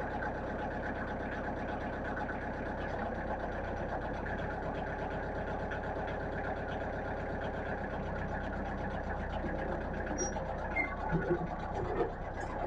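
Kubota compact diesel tractor engine running steadily, its note shifting slightly a few seconds in, with a few knocks near the end.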